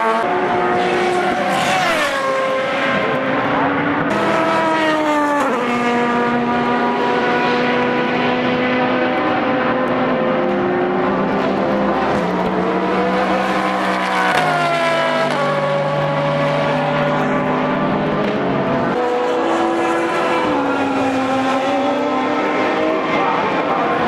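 Lola Aston Martin LMP1 race car's V12 engine running hard at racing speed. The pitch climbs and then drops sharply at gear changes, with long stretches held at a steady pitch.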